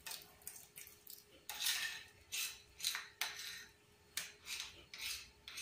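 Spoon scraping across a plate through thick, sticky pumpkin sweet in repeated short strokes, getting louder about a second and a half in. The sweet sticks to the plate, so the spoon makes this little scraping noise, which the cook takes as the sign that it has reached setting point.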